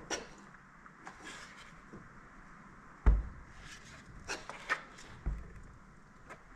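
Handling noises from a boxed diesel heater and its parts being moved about: light clicks and rubbing, with two dull thumps, the first about three seconds in and the louder, the second about two seconds later.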